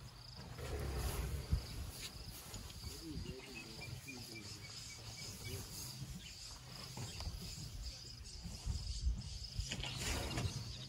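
Steady high-pitched insect chirring over low rustling and rumbling from a herd of elephants milling and grazing close by, with louder swells of rustle about a second in and near the end.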